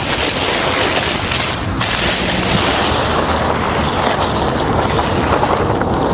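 Wind rushing and buffeting the microphone in a steady loud roar, with tent fabric rustling as it is lifted and unfolded.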